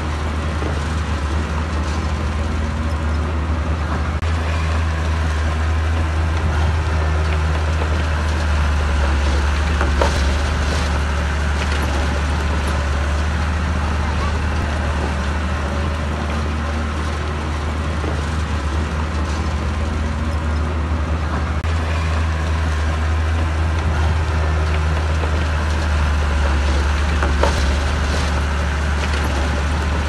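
Heavy diesel engine of earthmoving machinery running steadily under load, its revs slowly rising and falling, with a couple of sharp knocks.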